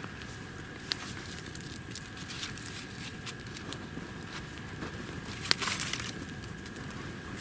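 Small wood campfire crackling, with scattered sharp pops and a louder burst of rustling crackle about five and a half seconds in.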